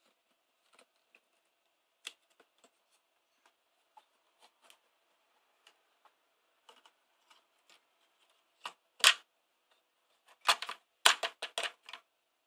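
Clear plastic waterproof housing of an SJ6000 action camera being handled on a wooden tabletop: scattered light clicks and taps, then a couple of louder knocks about nine seconds in and a quick run of clattering clicks near the end.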